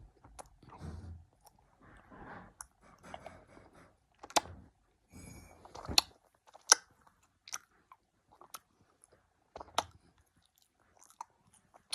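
A child chewing a sour sweet: soft, irregular chewing noises broken by a few sharp clicks.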